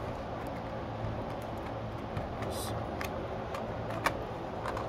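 A few light clicks and knocks from a pistol and a black plastic holster being handled on a range bench, the sharpest about four seconds in, over a steady background hum.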